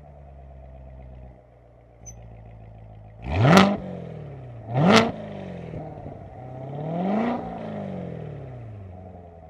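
Corvette Z06 V8 idling and being free-revved through its flap-controlled exhaust: a small blip, two sharp quick revs about a second apart, then a slower, longer rev that falls back to idle.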